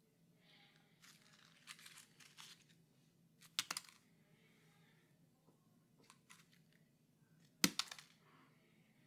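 A blank sheet of paper being handled: soft rustling, then two short, sharp crackles about four seconds apart, the second the loudest. A faint steady low hum runs underneath.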